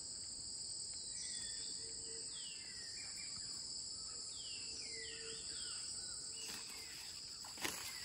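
Rainforest ambience: a steady, high-pitched insect drone on two pitches, with birds calling in several short, curving whistles through the middle. A couple of brief knocks near the end.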